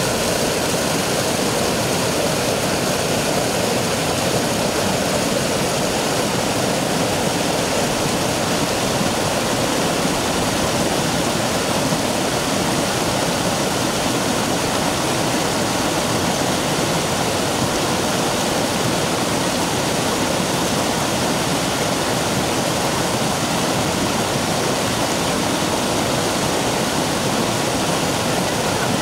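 Small mountain stream cascading over boulders and rock slabs, a loud steady rush of water.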